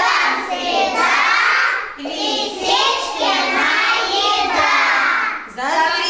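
A group of young children singing together in chorus, their high voices continuous with brief breaks between phrases.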